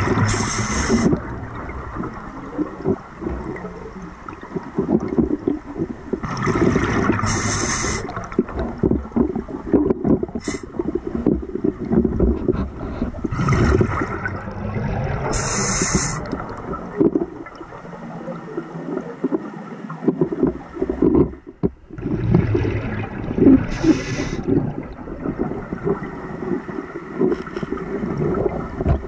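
Scuba diver breathing through a regulator underwater: about four breaths, each a hiss of inhaling followed by a gurgling rush of exhaled bubbles, over a constant low churn of water noise.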